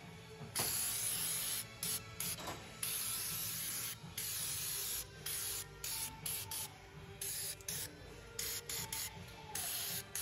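Aerosol can of Fluid Film rust inhibitor spraying through an extension straw onto a suspension arm. It gives a series of short hissing bursts that start and stop every second or so.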